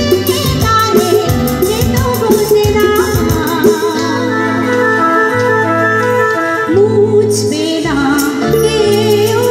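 Live band music with a woman singing into a microphone, over keyboards, electric guitars and percussion. The percussion drops out a few seconds in, leaving held keyboard chords. A wavering sung line and the beat come back near the end.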